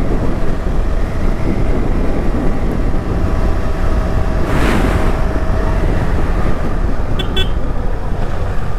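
Motorcycle engine and road noise while riding at a steady cruise. About halfway through, an oncoming car passes close by in a short swell of noise.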